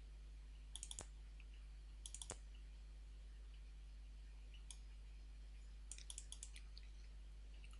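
Faint, sparse clicks of someone working a computer: a few about a second in, a few more about two seconds in, one near the middle and a quick run of about five near the end. Under them runs a low, steady electrical hum.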